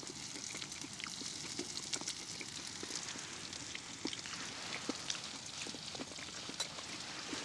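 Thick ribeye steak and onions sizzling steadily in a frying pan on a wood-burning stove, with many small pops and crackles.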